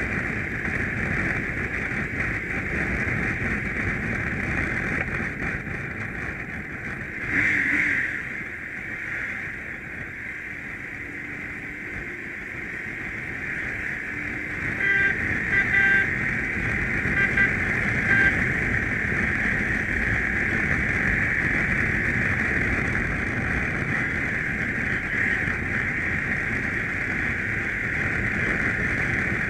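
BMW GS boxer-twin motorcycle riding along a road, its engine and wind noise running steadily. There is a brief louder swell about a quarter of the way in and a few short sharp sounds a little past halfway.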